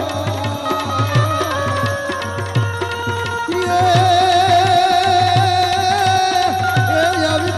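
Gujarati devotional folk music: a hand drum beats a steady rhythm, about three strokes every two seconds, under a melody of long wavering held notes.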